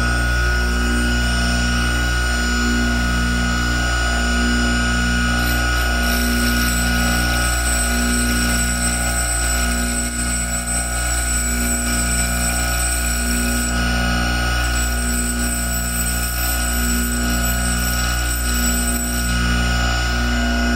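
Benchtop grinder with a diamond wheel and a Proxxon rotary tool both running: a steady motor hum with a high, steady whine. From about six seconds in until near the end, a faint high hiss is added as the tip of a sewing pin spinning in the rotary tool is ground into a taper against the diamond wheel.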